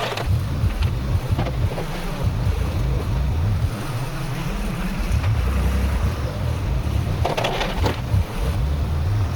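Tractor engine running steadily, a heavy low rumble with wind buffeting the microphone, and a brief harsher noise near the end.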